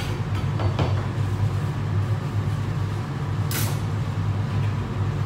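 Steady low hum of a commercial kitchen extractor hood fan running. A couple of light knocks of a knife on a plastic cutting board come in the first second, and there is a short hiss about three and a half seconds in.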